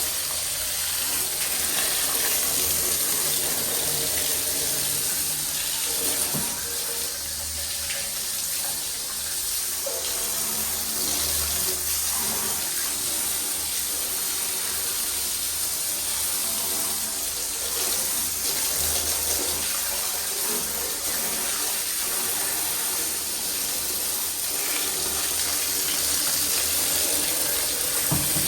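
Water running steadily, a constant splashing hiss.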